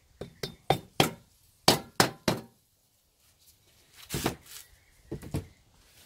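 About seven sharp, ringing hammer blows on a metal tube drift in the first two and a half seconds, seating a crankshaft bearing in its heated bearing holder. A metallic clatter follows about four seconds in, then a couple of lighter clinks.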